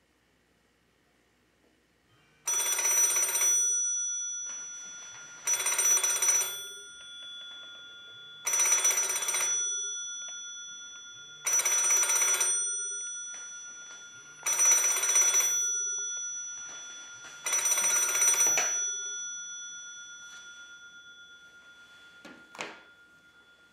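Rotary desk telephone ringing with a bell: six trills about three seconds apart, each a little over a second long, with the bell tone fading between rings. Near the end, a brief clatter.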